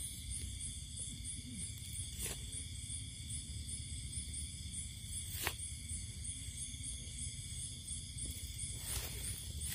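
A steady insect chorus with a rapid pulsing high chirp, over low rumble. Three sharp clicks sound about two, five and nine seconds in.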